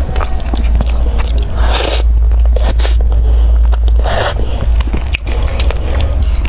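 Close-miked biting and chewing of a soft cream-filled custard pastry, wet mouth sounds coming in short spurts, the loudest about two and four seconds in, over a steady low hum.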